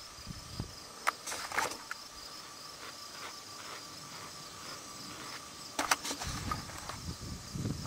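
Crickets trilling steadily in the background, with a few scattered clicks and knocks about a second in and again around six seconds in.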